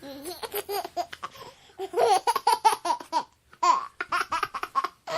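A baby laughing in quick runs of short, high-pitched giggles, with brief pauses between bouts.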